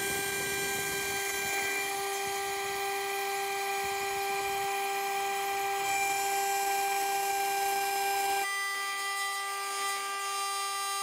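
Spindle of a home-built gantry CNC router running with a steady whine while a small end mill cuts a pocket into wood in conventional milling, with a rough cutting noise underneath. About eight and a half seconds in, the cutting noise drops away and only the spindle whine remains.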